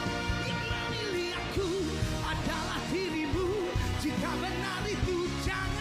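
Male lead vocalist singing a ballad live, backed by a band and orchestra, his voice moving in bending, wavering runs with vibrato.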